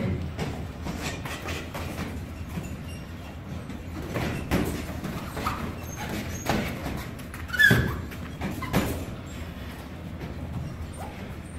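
Boxing sparring: gloved punches thudding and feet shuffling on the ring mat, irregular knocks over a low background hum, the loudest knock about two-thirds of the way through.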